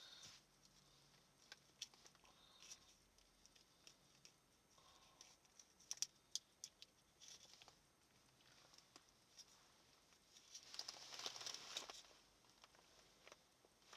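Near silence with faint rustling and a few light clicks, and a longer, louder rustle about eleven seconds in.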